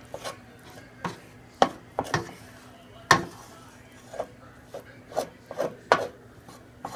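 Wooden spoon knocking and scraping against a stainless steel skillet while breaking up browning ground beef: about a dozen sharp knocks at uneven intervals.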